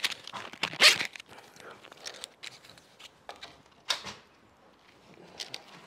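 Handling noises from plastic packers and the aluminium bifold door frame as the frame is packed and pushed up into place: a scatter of short clicks and scuffs, the loudest about a second in and again just before four seconds.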